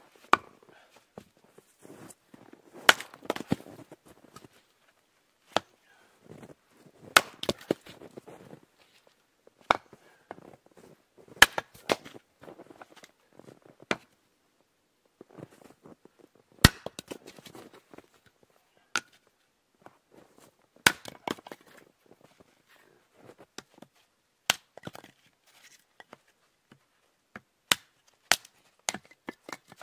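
Hatchet splitting firewood on a chopping block: a series of sharp chops at irregular intervals, one to several seconds apart, with softer knocks and rustling of the wood being handled between strikes.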